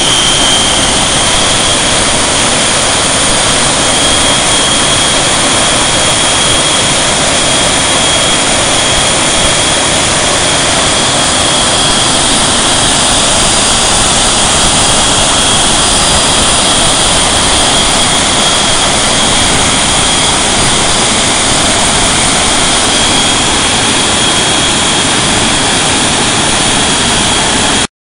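Westinghouse J34 turbojet engine running on a test stand: a loud, steady rushing noise with a steady high whine. The sound cuts out for a moment near the end.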